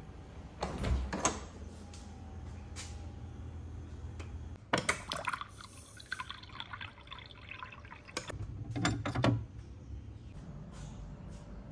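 Hot water from a dispenser running into a glass cup, the sound of filling lasting a couple of seconds. Before and after it come clunks and knocks of the refrigerator door and things being handled, the loudest just before the water starts.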